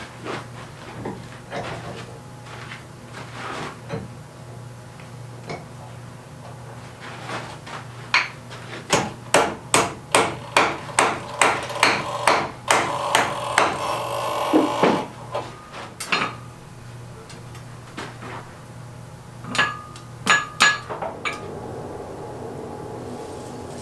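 Hand hammer striking red-hot iron clamped in a bench vise: a run of about a dozen sharp blows, about two a second, in the middle. A few more ringing hammer blows come near the end.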